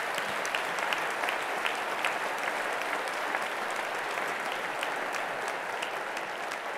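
Large audience applauding: many hands clapping in a dense, steady patter that tapers slightly near the end.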